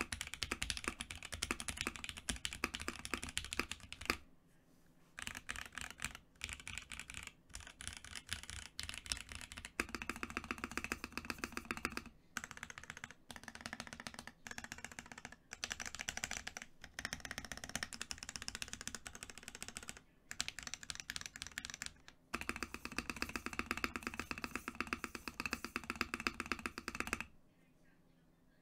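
Typing on a custom 60% mechanical keyboard with lubed Alpaca v2 linear switches on a polypropylene plate and Infinikey BOW keycaps: fast, dense runs of key strokes in bursts with short pauses. The clicking stops about a second before the end.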